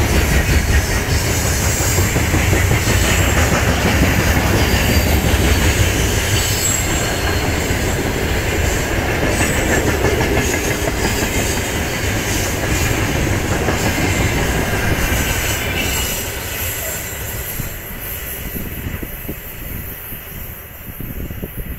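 Freight train of covered hopper wagons rolling past close by, the wheels clattering over the rail joints with high-pitched wheel squeal. It grows quieter from about three quarters of the way in as the last wagons pass and the train pulls away.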